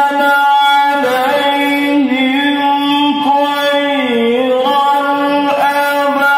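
A qari's melodic Quran recitation (tilawah): a male voice drawing out long, high sung notes with slow ornamental bends in pitch, dipping lower about two seconds in and again about four seconds in.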